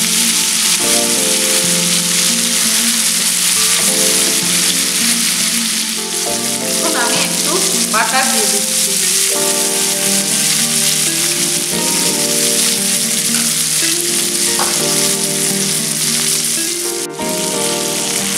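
Marinated chicken pieces frying in hot oil and butter in a nonstick frying pan, giving a steady, loud sizzle. Soft background music with held notes plays under it.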